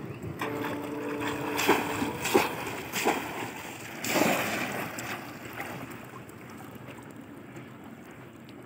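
Water splashing as a bamboo polo fish trap is plunged into shallow muddy water and heaved out again: a handful of sharp splashes in the first half, then quieter lapping water.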